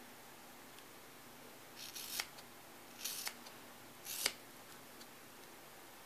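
Small scissors snipping through a rubber stamp mounted on cling foam: three cuts, starting about two seconds in and roughly a second apart, each a brief rasp ending in a sharp click as the blades close.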